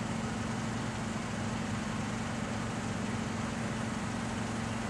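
Forklift engine running steadily at idle, an even low hum that holds unchanged.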